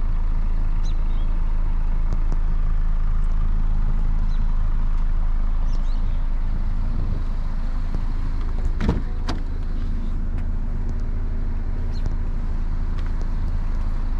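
A Honda Accord idling steadily with a low exhaust rumble. A couple of sharp knocks come about nine seconds in.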